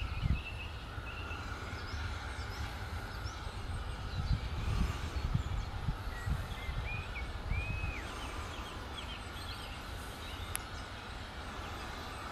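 Small birds chirping and singing in short repeated phrases over a low, uneven rumble, with one sharp click about ten and a half seconds in.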